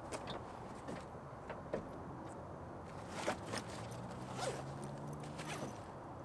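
A bag's zipper being pulled open in short scrapes, with small knocks and rustles as the bag is handled.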